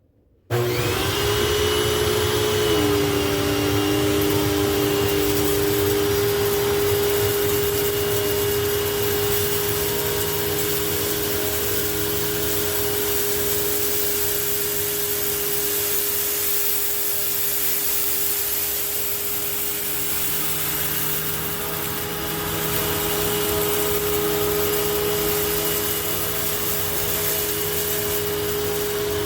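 2006 Hoover WidePath Fold Away upright vacuum with a 12-amp motor switched on about half a second in, its pitch climbing as the motor comes up to speed, then running steadily.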